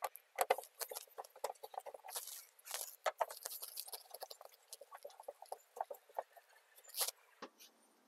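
Phillips screwdriver backing a screw out of the plastic bumper and fender liner, a run of small irregular clicks and scrapes as the screw turns and the plastic shifts, with a louder click about seven seconds in.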